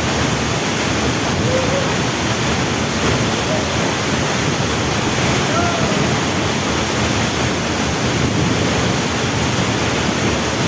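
Waterfall running steadily: a loud, even rush of falling water, with a few faint short pitched sounds on top.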